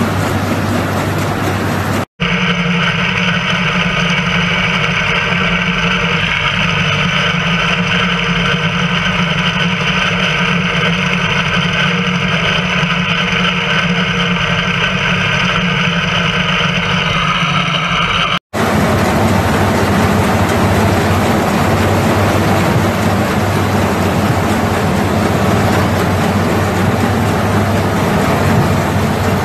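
Allis-Chalmers WD tractor's four-cylinder gasoline engine running steadily under load while driving a mounted two-row corn picker through standing corn. The sound breaks off for an instant twice, about two seconds in and again past the middle.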